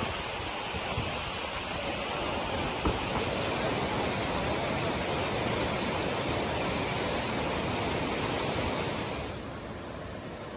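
Swollen, muddy river in flood rushing past as a steady wash of water noise, with the wind now and then thumping on the microphone. The noise drops to a quieter rush about nine seconds in.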